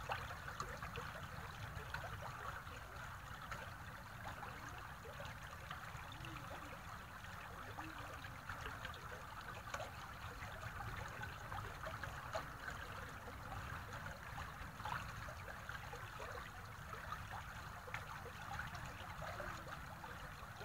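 Shallow stream running over a pebble bed: a steady trickling babble full of small splashing ticks.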